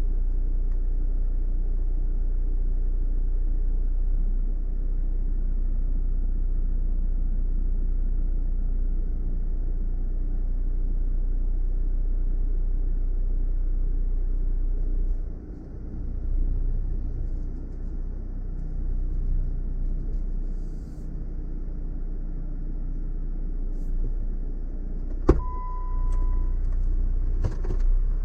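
Off-road car's engine running with a steady low rumble that drops and turns uneven about halfway through. Near the end there is a sharp click, then a short steady beep, followed by a few more clicks.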